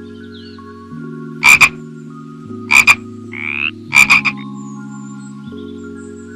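A frog croaking three times, about a second and a quarter apart, each croak a quick run of two or three pulses, with a short rising call between the second and third. Soft background music plays underneath.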